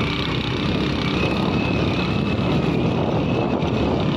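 Motorcycle engine running steadily under way.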